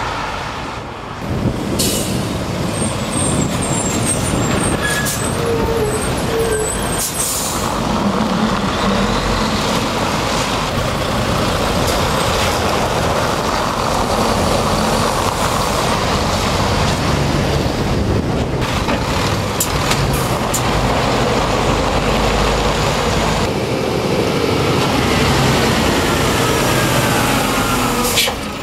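Heavy goods lorries and other traffic passing close by on a busy main road: steady, loud engine and tyre noise, with the sound changing abruptly a few times.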